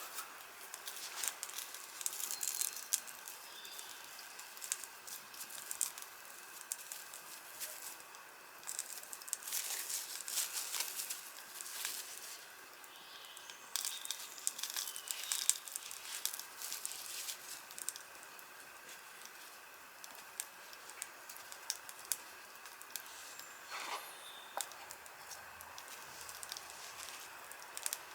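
Wood campfire crackling, with irregular pops and sharp snaps over a steady hiss, coming in busier clusters.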